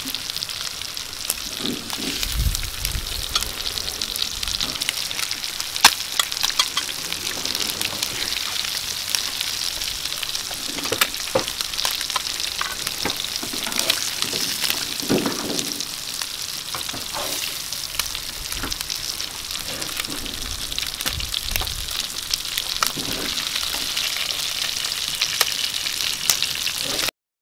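Fish pieces sizzling in hot oil on a large metal tawa, with a metal spatula scraping and clicking against the pan as pieces are lifted out. The sound cuts off suddenly near the end.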